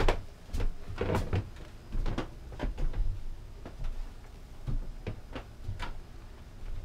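Irregular knocks, clicks and soft thuds of people moving about a wooden boat cabin, several in the first three seconds and fewer after about four seconds.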